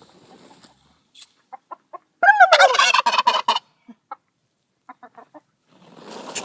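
Eastern Bronze tom turkey letting out one loud, wavering, rapidly pulsing call about two seconds in, lasting about a second and a half, with a few short soft notes before and after it.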